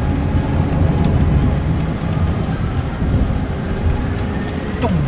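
Car driving, with steady road and engine noise heard from inside the cabin.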